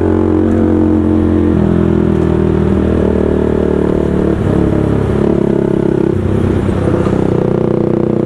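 Motorcycle engines running hard at speed, their pitch stepping up and down several times as the throttle comes on and off. Among them is a Bajaj 200 single-cylinder converted from AS200 to NS200 with a loud aftermarket SC Project-style exhaust, riding alongside near the end.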